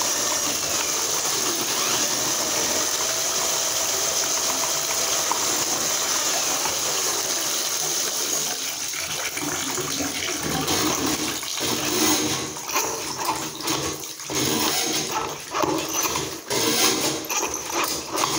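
Water running from a bathtub spout into the tub and down the drain, a steady rush, while a drain-snake cable is worked through the overflow opening. About ten seconds in the rush gives way to irregular knocking and rattling.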